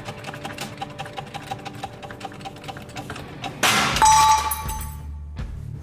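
An old wheel bearing breaks free of a Toyota Aygo steering knuckle under a press and bearing driver. There is a sudden loud crack about three and a half seconds in, then a metallic ring that dies away over about a second.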